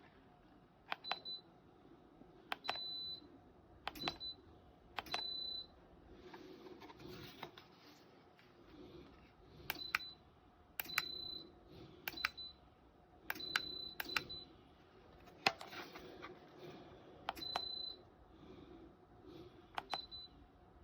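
Buttons pressed on an electronic appliance's control panel, about a dozen times spread out. Each press is a sharp click followed by a short high beep, some beeps briefer and some held a little longer.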